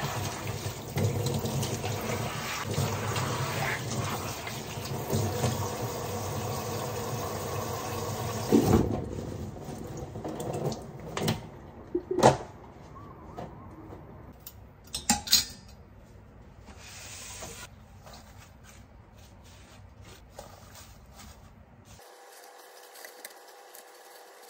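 Kitchen tap running as pumpkin leaves are rinsed under it, for about the first nine seconds. After the water stops, a few sharp knocks and clatters of kitchenware being handled.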